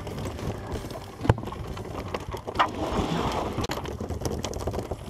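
Cast net being handled on a boat deck: knocks and rattles, with water splashing off the net. A sharp knock about a second in is the loudest sound, with another knock followed by a brief rush of splashing near the middle.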